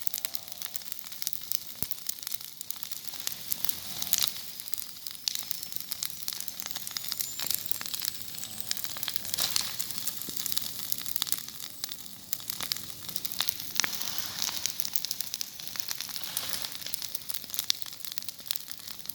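Vegetation fire burning, with dense irregular crackling and popping over a steady hiss.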